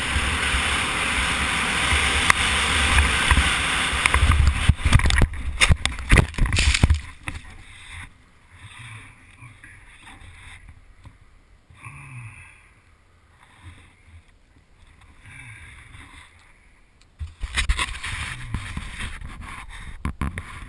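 A sport ATV at speed on a dirt trail with heavy wind rush on the microphone, then a cluster of hard knocks and clatter about five to seven seconds in as the quad crashes. After that it goes much quieter with a few faint voice-like sounds, and wind and motor noise come back near the end.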